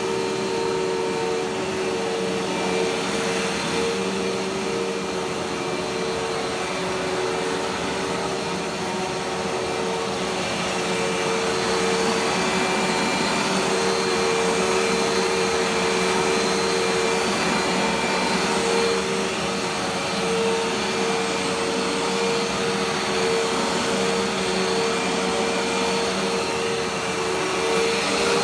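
Dirt Devil Dash vacuum cleaner running steadily, its motor holding a constant whine over the rush of suction, as it is pushed over the floor picking up dirt and paper.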